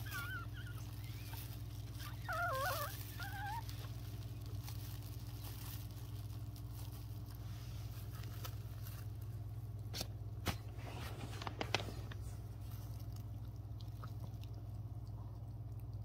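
Newborn Pomeranian puppies squealing: a short wavering squeak at the start, then a louder warbling cry about two seconds in that lasts about a second. Later there are a few sharp clicks over a steady low hum.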